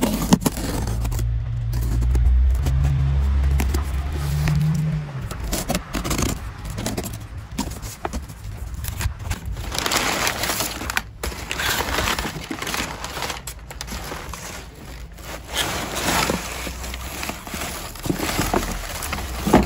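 Cardboard box being torn open and crumpled kraft packing paper rustling and crackling as hands rummage through it and pull out a woven straw toy. Over the first five seconds a motorbike engine drones underneath, climbing in pitch.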